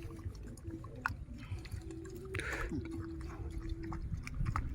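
Close-up chewing and mouth sounds of someone eating mango with rice, with small wet clicks and a brief louder noise about halfway through. A faint steady hum comes and goes underneath.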